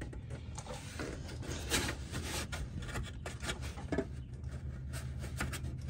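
Irregular knocks, clicks and rubbing as a plastic snorkel body is worked against the fender and A-pillar and will not seat, jammed tight against a bracket. A steady low hum runs underneath.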